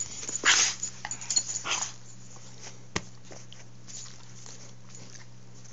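Dog making short, rough noises in bursts while play-fighting during the first two seconds, then a single sharp click about three seconds in. After that only a faint steady hum.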